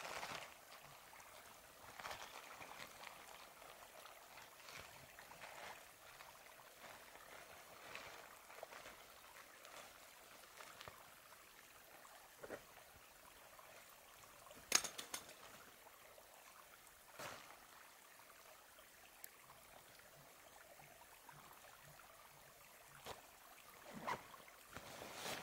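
Quiet rustling and handling of gear in a backpack as a hammock tarp is dug out: scattered soft rustles and knocks, with a sharp click about 15 seconds in, over a faint steady hiss.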